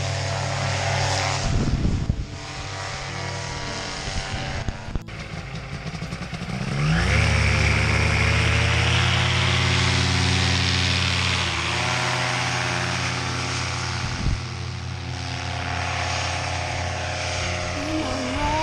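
Paramotor engines and propellers running; about seven seconds in one engine revs up to full throttle with a rising pitch for the takeoff run, holds loud for a few seconds, then eases back a little as it climbs away.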